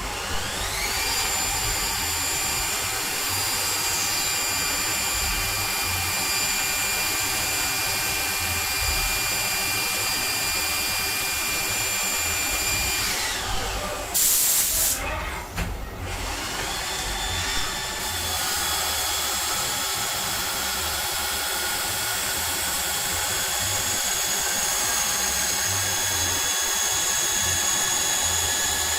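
CNC lathe running: its spindle drive whines up to a steady pitch and holds it, winds down about halfway through, and after a short burst of hiss speeds up again to a new steady pitch.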